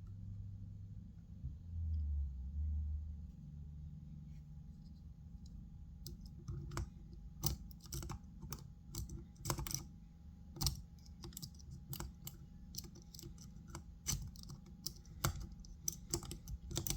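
Irregular rapid clicking of a stainless steel lock pick scrubbing across the pins inside a small padlock. It starts about six seconds in, after a few seconds of low rumble.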